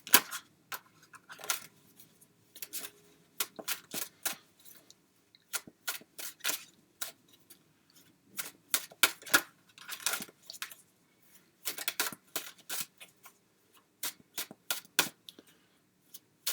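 A deck of tarot cards being shuffled by hand: irregular crisp clicks and slaps of cards against each other, some in quick runs, with short pauses between.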